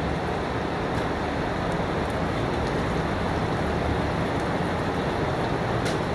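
Steady rain: a dense, even hiss with scattered sharper drop taps.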